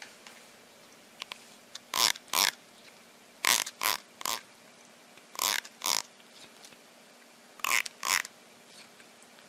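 A cat makes short, sharp breathy noises with its mouth open and tongue out, mostly in quick pairs, four times over.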